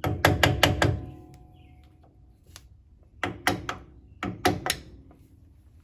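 Quick sharp taps on the sides of a front-wheel grease cap to work it off the hub: a run of about five taps, then after a pause two more short runs of three or four. The first run leaves a brief metallic ring.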